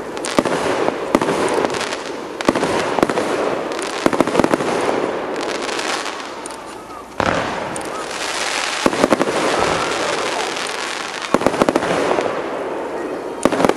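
Fireworks display: aerial shells bursting with sharp bangs over steady crackling. A sudden loud burst comes about seven seconds in, and quick clusters of pops come near the end.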